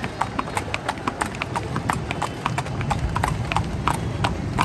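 A carriage horse's hooves clip-clopping as it pulls a horse-drawn calèche, about five hoof strikes a second in an uneven beat, over a steady low rumble.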